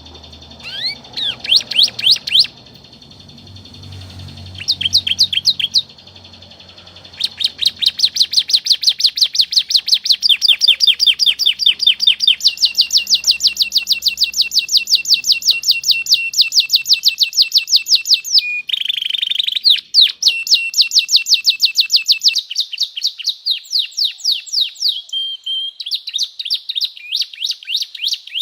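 Domestic canary singing: a few short phrases at first, then long, near-continuous rolls of rapid repeated high notes, shifting briefly to a lower held note about two-thirds of the way through.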